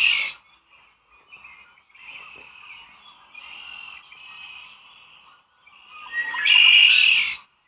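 A bird calling: a loud call at the start, softer twittering and chattering, then another loud call about six seconds in.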